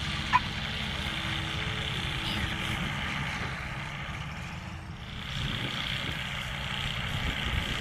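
Weight-shift trike microlight's engine and pusher propeller running steadily as it touches down and rolls out along the runway, with a brief chirp about half a second in.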